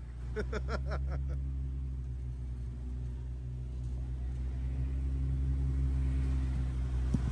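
Off-road Jeep's engine running steadily at low revs as it crawls up a rock obstacle, slowly growing louder. A brief voice calls out near the start.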